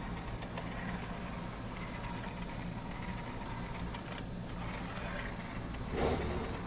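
Small loading motor of a Sony CDP-CE375 five-disc CD changer running steadily with a low hum while the tray mechanism doesn't move. A motor that spins without driving the mechanism is the sign of a slipping belt, as the technician suspects. A brief, louder noise comes about six seconds in.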